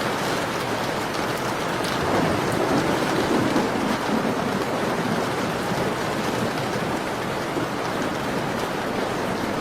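Steady rain falling, a continuous even hiss, with a low swell in the sound about two to four seconds in.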